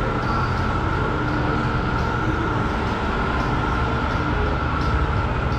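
Steady rush of air with a low rumble and a thin, constant high whine, typical of a spray booth's ventilation fan running.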